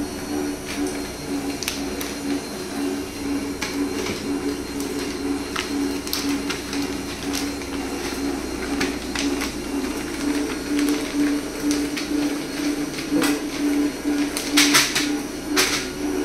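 Continuous band sealer running: a steady motor hum that pulses in an even rhythm. Crackles of plastic pouches being fed through and sealed sound over it, with a cluster of louder crackles near the end.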